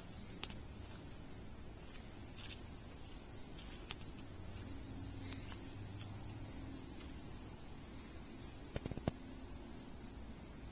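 A chorus of insects giving a continuous, even, high-pitched buzz, with a few faint clicks.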